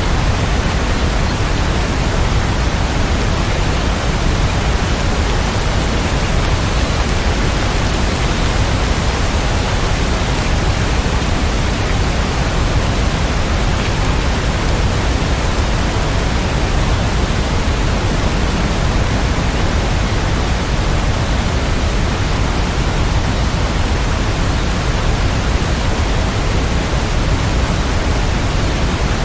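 Rain falling steadily: an even, unbroken hiss with no thunder and no separate drops standing out.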